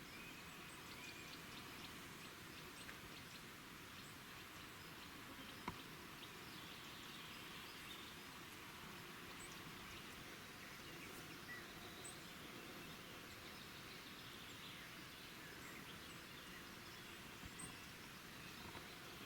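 Faint outdoor ambience: a steady hiss with scattered faint bird chirps, and a single sharp click about six seconds in.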